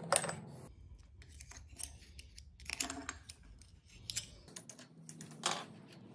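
Steel parts of a Ford Bronco's Dana 44 manual locking hub clicking and scraping as they are turned out by hand and worked with a pick: a handful of sharp metal clicks, a second or so apart, with light scraping between.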